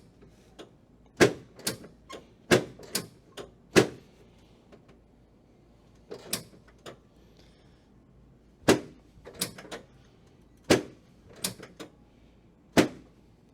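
Sharp clicks and knocks from a chiropractic adjustment of the lower spine at L5, coming in irregular groups of several strikes with short quiet gaps between them.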